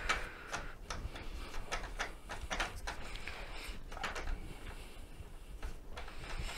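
Irregular light clicks, taps and scrapes of hand work on a mobility scooter's wheels.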